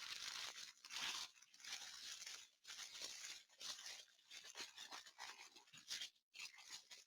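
Faint crinkling and rustling of small plastic bags of diamond-painting drills being handled, in short irregular bursts.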